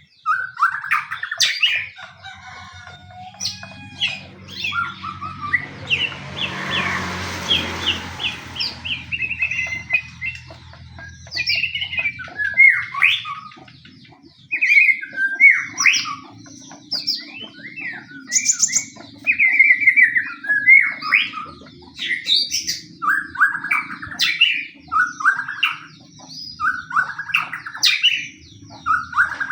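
White-rumped shama (murai batu) singing in an agitated, fighting mood: a long run of short, varied whistled and chattering phrases, with a harsh rattling burst around six to eight seconds in. A low steady hum runs underneath.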